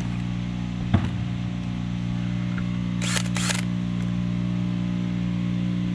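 Power drill running steadily at constant speed, driving a mixing paddle through a cup of epoxy resin and hardener. A sharp knock comes about a second in and two short scraping sounds a little past the middle.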